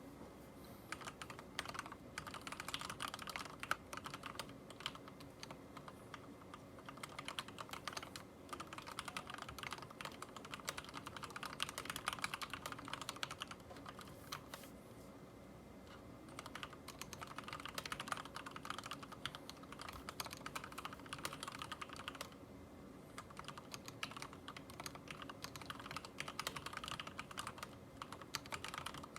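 Typing on a Ninja87 Arc XD mechanical keyboard with lubed Cherry MX Red linear switches: fast runs of key clicks and clacks in bursts of several seconds, broken by short pauses.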